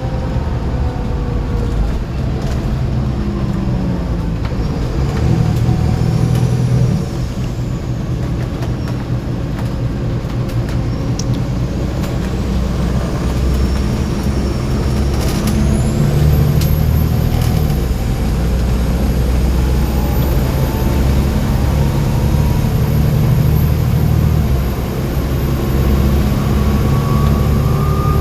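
Volvo B7TL bus's turbocharged diesel engine running under load, its pitch rising and falling with speed, with a high turbo whistle that climbs steeply about halfway through and then holds.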